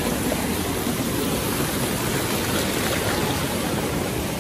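Shallow mountain stream rushing steadily over rocks and pebbles.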